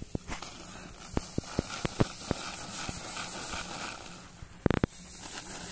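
Scattered sharp clicks and rustles of a plastic tarp and a bamboo winnowing tray as rice paddy is handled for winnowing, with a quick run of louder knocks about four and a half seconds in, over a steady faint high hiss.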